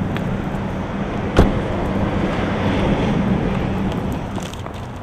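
Steady car noise with a low hum, and a single sharp bang about a second and a half in: a car door shutting.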